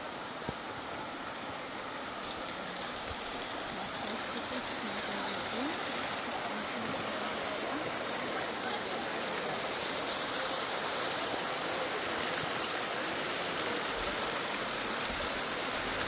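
Water rushing and splashing over a small waterfall, a steady rush that grows slowly louder.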